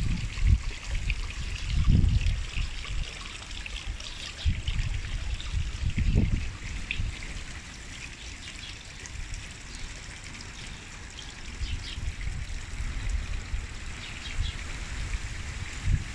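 Wind rustling through garden foliage, a steady hiss, with gusts buffeting the microphone as low rumbles, the strongest about two and six seconds in.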